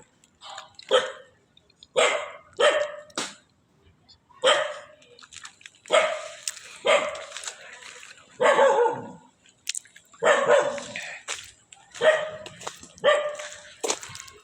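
A dog barking repeatedly: about a dozen short barks in irregular bunches, with brief pauses between them.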